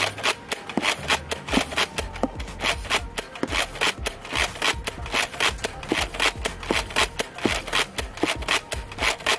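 Nerf Rival Hypnos XIX-1200 blaster being primed and fired over and over at speed: a quick, uneven string of sharp plastic clacks and pops, several a second.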